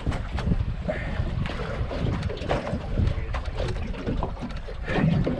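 Wind buffeting the microphone over the sound of choppy water against a small boat's hull, with scattered knocks and splashes.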